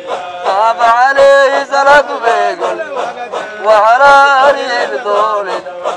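A group of men chanting a Qadiriyya Sufi dhikr in unison, in long sung phrases with wavering pitch, with sharp hand claps among the voices.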